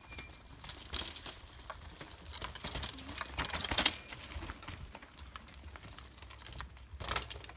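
Bicycle tyres rolling over dirt, dry leaf litter and loose rock on a rocky trail, with irregular crunches, clicks and knocks. The sharpest knock comes a little past the middle.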